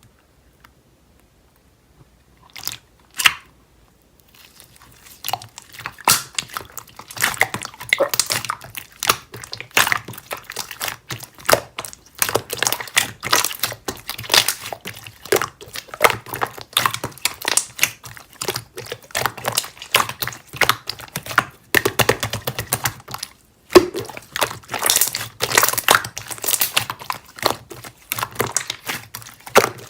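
Slime being squished and pressed by hand: a dense, irregular crackling of small clicks and pops. It starts with a couple of sharp clicks a few seconds in, thickens soon after, and breaks off briefly past the middle.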